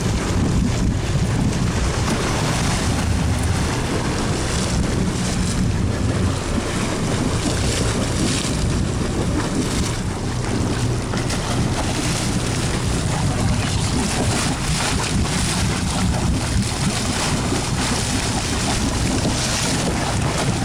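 Wind buffeting the microphone and sea water rushing along a fishing boat's hull, over the low steady hum of the boat's engine.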